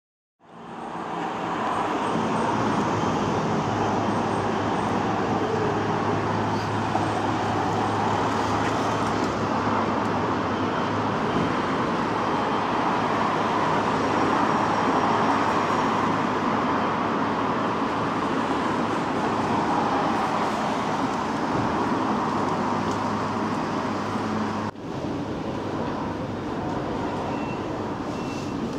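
Steady road traffic noise with a low, even hum underneath. About 25 seconds in it cuts abruptly to a quieter, steady background of a station ticket hall.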